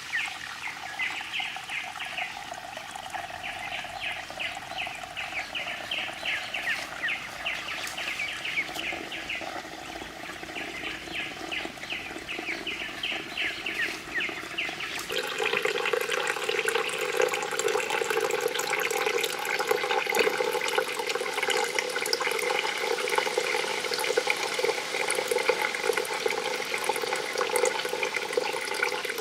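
Water running and splashing steadily. About halfway through the sound changes abruptly to a louder, fuller flow.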